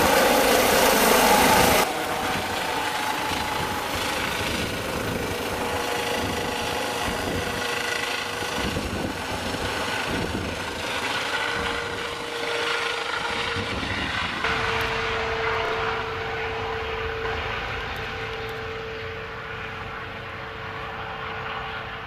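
Eurocopter EC135 rescue helicopter lifting off, climbing and flying away, with its rotors and turbines running. The sound is loud for the first two seconds, then drops suddenly to a steady whine with a clear tone, which slowly fades as the helicopter moves off.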